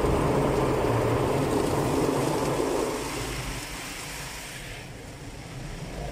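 Automatic car wash's red cloth brushes scrubbing over the car's body and windows with water spraying, heard from inside the closed car. The scrubbing is loud and steady, then falls away about three seconds in to a quieter spray of water.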